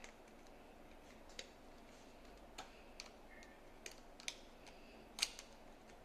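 Faint, scattered light clicks and taps, about six in all, the sharpest about five seconds in, over quiet room tone.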